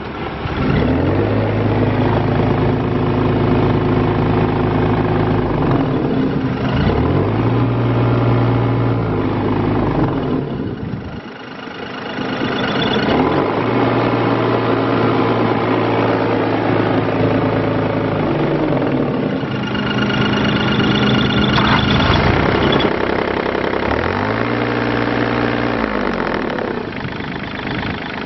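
Diesel engine of a 2011 IHI 30VX3 mini excavator running, its pitch rising, holding and dropping back again several times as the machine is worked, with a brief lull about eleven seconds in.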